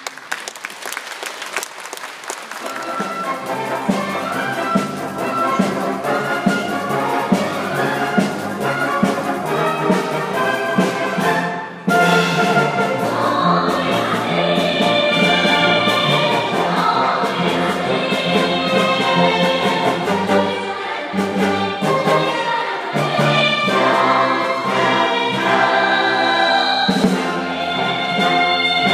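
Live orchestral music with brass from a children's pit band, building up over the first few seconds. About twelve seconds in it gets suddenly louder, and a group of girls' voices sings over the band.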